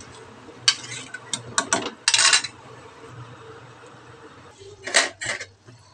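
Metal spoon clinking and scraping against the inside of a pressure cooker pot while stirring dal khichdi: a few sharp clinks about a second in, a short scrape around two seconds in, and two more clinks near the end.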